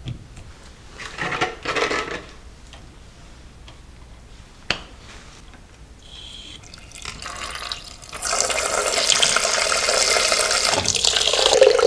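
Water running hard from a sink tap, the supply just turned back on to test a newly installed angle valve; it starts suddenly about eight seconds in and stops near the end. Before it come a few brief knocks and handling sounds and one sharp click.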